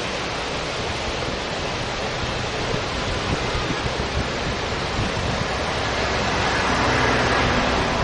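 Surf breaking and washing up a sandy beach as a steady roar, with wind rumbling on the microphone; it swells a little near the end.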